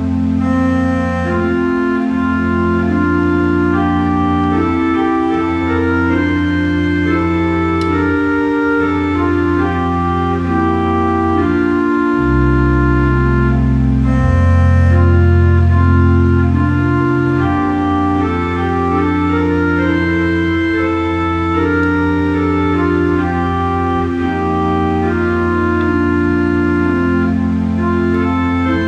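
Organ music: slow, sustained chords over long-held bass notes, the bass dropping to a lower, stronger note about twelve seconds in.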